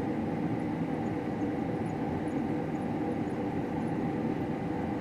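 Combine harvester running steadily while cutting wheat: an even machine drone with a faint constant high whine over it.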